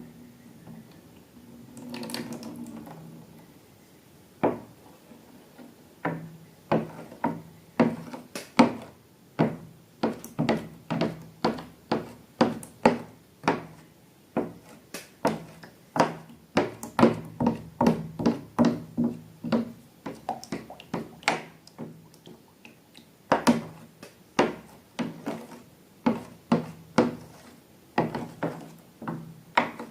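Hands working slime, giving a run of sharp, clicky pops and taps about two a second from about six seconds in, after a softer squish near the start.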